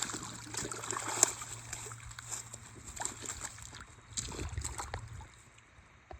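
Irregular splashing and sloshing of water as a hooked walleye is brought in at the river's edge, dying away after about five seconds.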